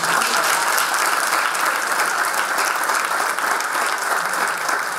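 An audience of students applauding, a steady mass of hand claps.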